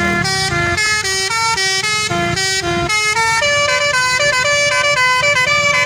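Telolet multi-tone bus horn playing a fast, unbroken tune of stepped notes, several horn tones sounding together.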